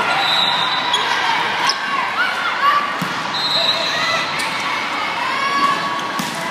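Indoor volleyball rally in an echoing sports hall: spectators' chatter, sneakers squeaking on the court floor and a few sharp hits of the ball.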